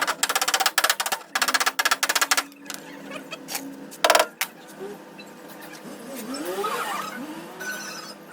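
Two runs of rapid, evenly spaced metallic knocks, then a single loud knock about four seconds in.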